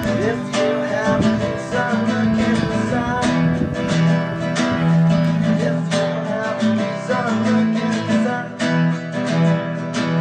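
Background music of strummed acoustic guitar with a steady, even rhythm of strokes.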